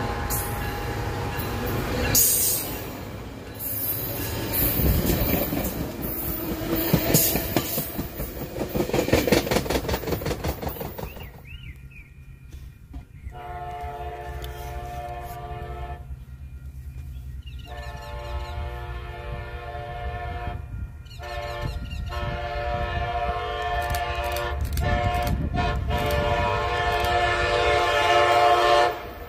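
A Coaster commuter train rolls along the platform and away, its wheels clattering on the rails. From about thirteen seconds in, the multi-tone horn of the approaching Amtrak train, cab car 6903 leading, sounds a chord in long blasts with short breaks, the last one held for several seconds.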